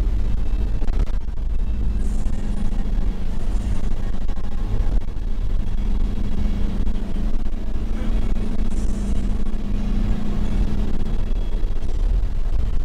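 Toyota HiAce Commuter van's engine and tyre noise heard from inside the cabin while driving along a road, a steady low drone with no sudden changes.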